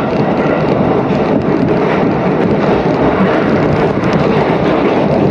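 Running noise of an electric commuter train, heard from inside the car: a steady, loud noise from the wheels on the rails and the moving train.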